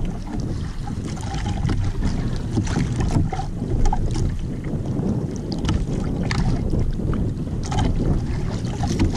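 Wind rumbling on the microphone over choppy sea, with water slapping against the outrigger boat's hull. Short splashes and knocks come at irregular moments as hooked fish are handled and gaffed at the boat's side.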